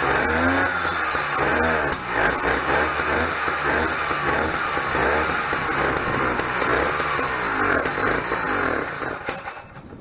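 Vintage minibike's two-stroke engine running, its revs rising and falling again and again as the throttle is worked, then dying away near the end. It is running a little rich.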